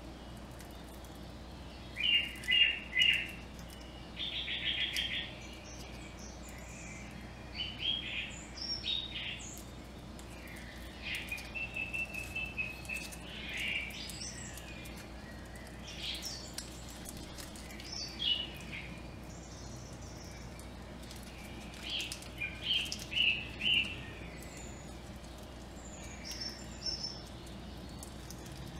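Small songbirds chirping in short phrases every few seconds, including a rapid buzzy trill about five seconds in, over a faint low steady hum.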